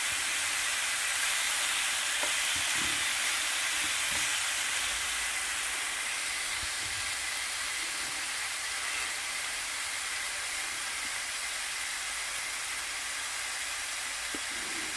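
Thin slices of pork neck sizzling in a nonstick frying pan: a steady high hiss of frying fat.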